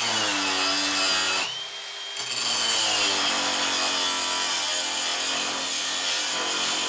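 Cheap cordless angle grinder with a thick grinding disc grinding flat steel under heavy hand pressure. The motor whine sags in pitch as it bogs under the load, eases briefly about a second and a half in, then sags again, over the steady hiss of the disc on the metal. It is taking the weight without stalling.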